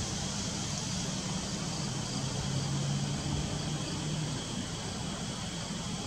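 Steady outdoor background hiss with the faint low drone of a distant engine, which swells slightly mid-way and fades out after about four and a half seconds.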